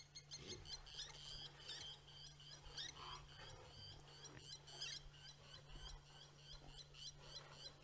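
Lapwing alarm calling: short, high, metallic notes repeated several times a second without a break. A faint steady low hum sits underneath.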